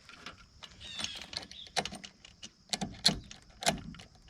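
Chainsaw chain being handled and fitted around the drive sprocket: a series of separate metallic clicks and clacks from the chain links.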